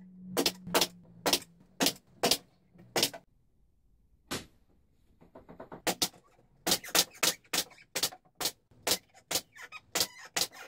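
Hand saw cutting through a board in regular back-and-forth strokes, about two a second. The sawing pauses for a couple of seconds midway, then resumes at a faster rate of about three strokes a second.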